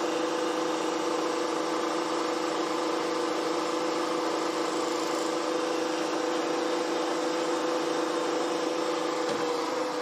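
Milling machine running steadily with a small end mill taking a light 0.1 mm pass across the damaged jaw end of a lathe parting blade. A steady hum with two clear tones.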